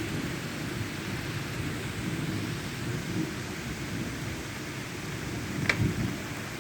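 Heavy rain falling steadily in a thunderstorm, with a low rumble of thunder underneath. One sharp tap near the end.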